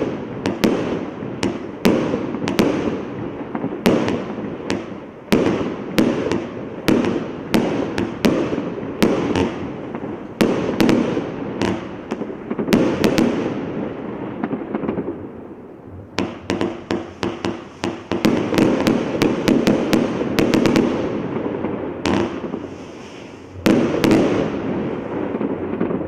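Evolution Fireworks Prometheus 72-shot compound barrage firing: sharp shot reports and bursts in quick succession over continuous noise, with a faster run of rapid shots about two thirds of the way in and one more loud report near the end.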